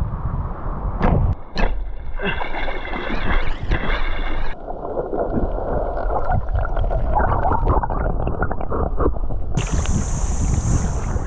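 Shallow seawater splashing and gurgling around a wading person, with wind rumbling on the microphone. A wavering high whine runs for about two seconds from two seconds in, and a steady high hiss comes in near the end.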